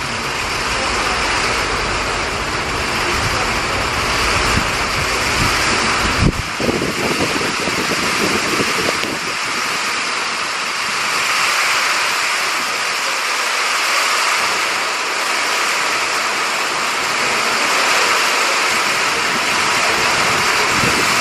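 Steady heavy rain falling, with cold wind buffeting the microphone for the first six seconds or so and a brief knock about six seconds in.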